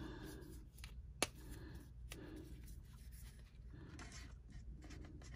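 Faint scratching of a gray marker's fine tip stroking across card stock as a word is written, with a sharp click about a second in.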